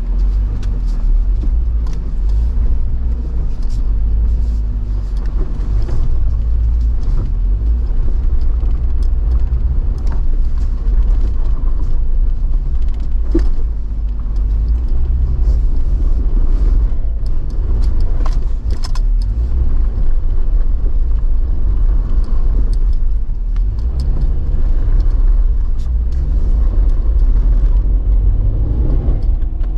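A Jeep on an off-road trail, running with a steady low rumble, with scattered knocks and clicks throughout.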